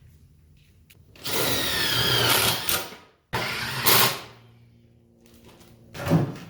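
Power drill run in two bursts, about two seconds and then one second, its motor whine sliding in pitch as it takes load, followed by a short knock near the end.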